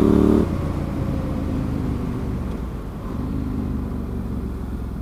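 Yamaha Tenere 700's parallel-twin engine pulling under throttle, then the throttle shuts about half a second in and the engine drops to a lower, quieter rumble as the bike rolls on.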